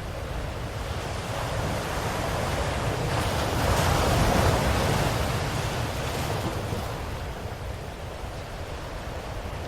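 Ocean waves washing ashore: one wave swells to a peak about four seconds in and ebbs away, with a steady low rumble of surf beneath.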